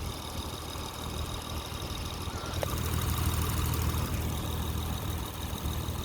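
Honda car engine idling steadily, getting louder about two and a half seconds in.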